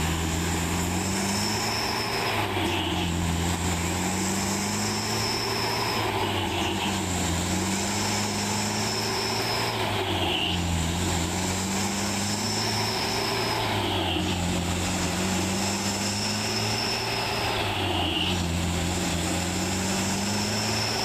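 Heavy truck's diesel engine running steadily under load, with a note that rises and levels off about every four seconds.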